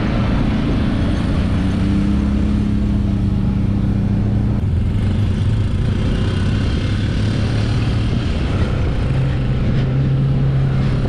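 UTV engine running steadily as the side-by-side drives a dirt trail, with wind and rough-road noise. The engine note shifts lower about halfway through.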